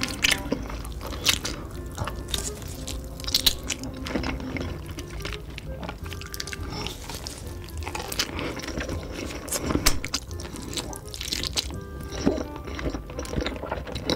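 Close-miked, wet chewing and biting of a thick piece of pork, with irregular crackles and clicks, over background music.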